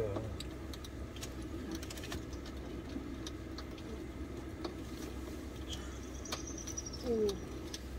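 Light clicks and taps of chopsticks and food being handled, scattered over a steady low hum. A brief falling tone comes about seven seconds in.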